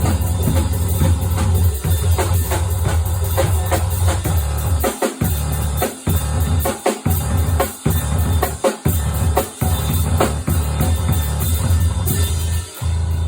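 Experimental noise-drum music: dense drum hits over a thick low hum and hiss, the low hum cutting out briefly several times in the second half.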